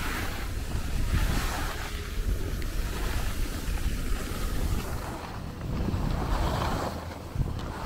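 Wind buffeting the handheld camera's microphone as a constant low rumble, over the hiss and scrape of skis sliding on packed snow that swells and fades with the turns.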